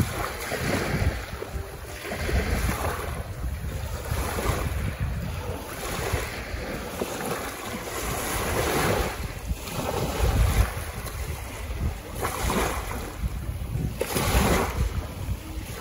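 Small ocean waves breaking and washing up a sandy shore, the surf swelling and falling back every couple of seconds, with wind buffeting the microphone.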